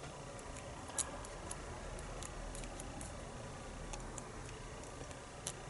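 Faint, irregular small clicks and taps of the disassembled lock's core and pins being handled, with a sharper click about a second in and another near the end.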